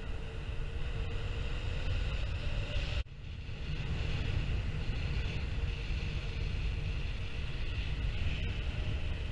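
Wind noise buffeting the microphone of a camera on a paraglider in flight: a steady deep rush with a hiss above it. It drops out sharply and briefly about three seconds in, then carries on.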